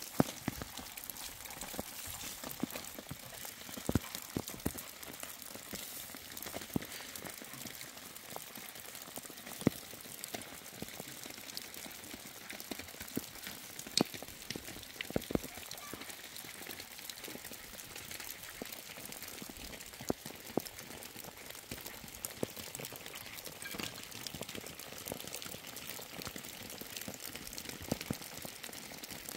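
Steady rain falling on wet ground: a fine, even hiss with scattered, irregular louder drop ticks.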